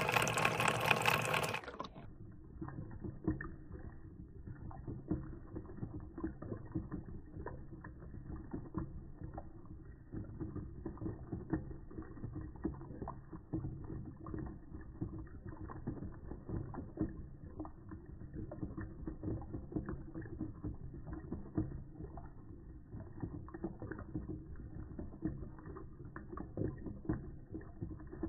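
Magnetic stirrer with a stir bar spinning in a bowl of water, heard through slow-motion playback: a brighter, louder watery whir for about the first two seconds, then the sound slowed and lowered into a dull churning hum full of fine rapid clicks and rattles.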